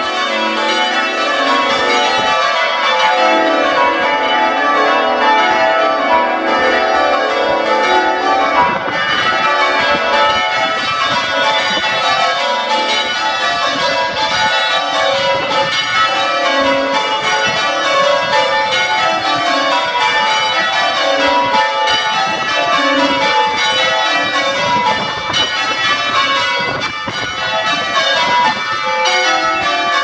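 The front six bells of a ring of ten church tower bells being raised (rung up) from rest, ringing continuously with many strokes overlapping.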